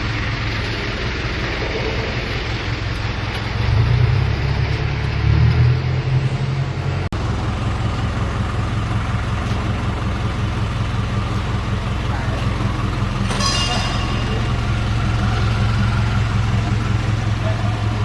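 An engine running steadily at idle, swelling louder twice between about four and six seconds in. A brief hiss comes about thirteen and a half seconds in.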